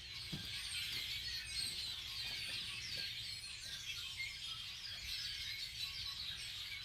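A large gathered flock of birds calling together in trees: a dense, continuous chorus of many overlapping high chirps.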